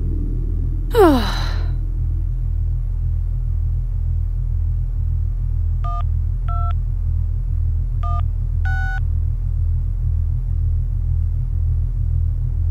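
A low rumbling drone with a slow, regular pulse runs underneath. About a second in comes a loud falling whoosh. Then, about six and eight seconds in, four short two-note electronic beeps in two pairs: a phone's text-message tones as messages are sent and received.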